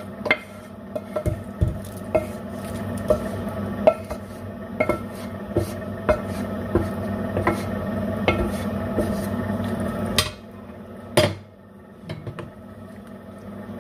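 A cooking utensil stirring in a pot of simmering beef rolls in red wine, knocking against the pot about once a second over a steady hum. The hum drops away about ten seconds in, followed by one louder knock.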